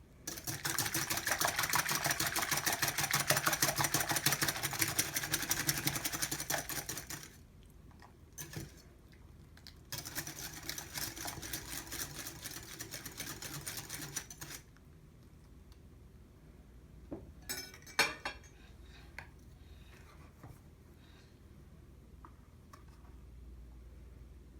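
A fork or whisk rapidly beating ingredients against the side of a bowl, in two long bouts of fast, even clinking strokes, followed by a few separate knocks of utensil on dish.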